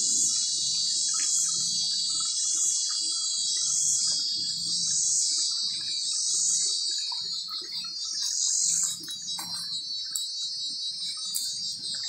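Chorus of cicadas buzzing high and shrill, swelling and fading in regular waves about every second and a half, easing off about nine seconds in. Beneath it, a faint on-and-off hum of honeybees flying at the bait box entrance.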